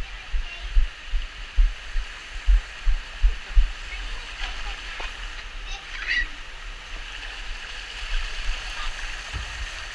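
Water running and splashing down the enclosed plastic tube of a water slide, a steady hiss. For the first few seconds it is covered by low thumps, about two a second, from the wearer's footsteps jolting the body-worn camera.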